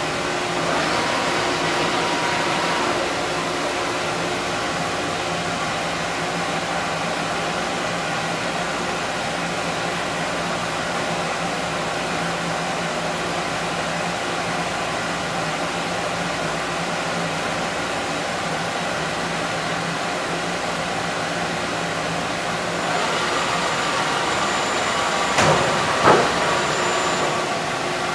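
Cincinnati CNC machine running with a steady mechanical hum of several tones, somewhat louder for the first few seconds. Near the end a hiss and a high whine come in, with two sharp knocks a little over half a second apart.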